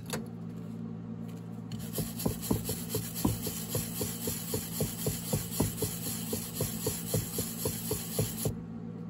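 A hand wire brush scrubbing back and forth over a fresh aluminum-bronze weld on a cast-iron Willys Jeep transfer case, at about four rough strokes a second. The scrubbing starts about two seconds in and stops shortly before the end.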